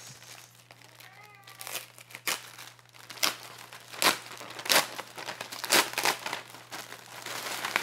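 A Priority Mail Tyvek mailing envelope being pulled open and handled, crinkling with sharp crackles about once a second from about two seconds in.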